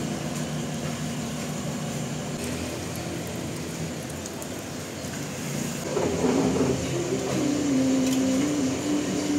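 Steady hum of a street food stall's kitchen, with a thin held tone that changes pitch in steps, like a faint voice or music, from about seven seconds in.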